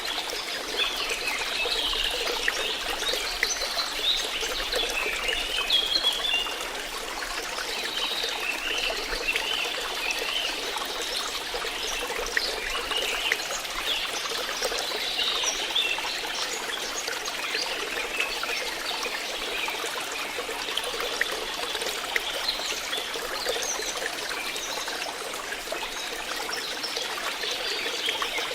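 Small stream of water flowing and trickling steadily, with a continuous babbling and gurgling.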